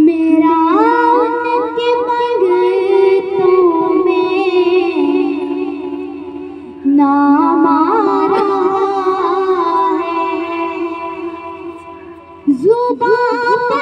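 A voice singing a naat in long, ornamented held notes. Three phrases each begin loud and fade away, the second starting about halfway through and the third near the end.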